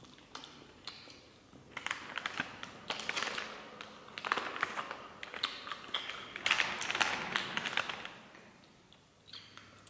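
Foil-lined deli wrapper crinkling and crackling as slices of cured meat are picked out of it by hand. The crackling starts about two seconds in, is loudest near seven seconds, and dies down near the end.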